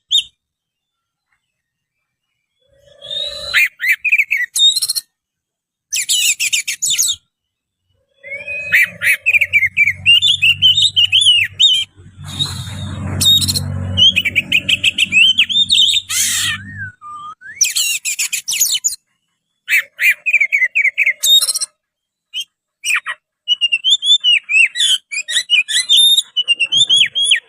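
Oriental magpie-robin (kacer) singing in bursts of rapid, varied whistled and scratchy phrases, with short pauses between them. A low hum sits under the song for several seconds in the middle.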